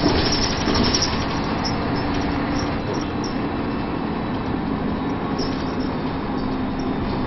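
Inside a DAF Paladin single-deck bus on the move: steady engine note under road noise, with the body panels and fittings rattling as the bus jolts over bumps, most plainly about a second in and again a little past halfway.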